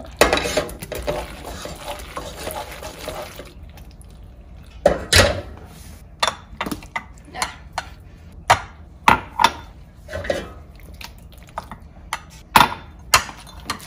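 A wooden spoon stirring cheese sauce through elbow macaroni in a saucepan, a steady wet scraping for the first few seconds. Then, from about five seconds in, a run of sharp knocks and scrapes as the spoon scoops the macaroni from a glass measuring cup into ceramic bowls.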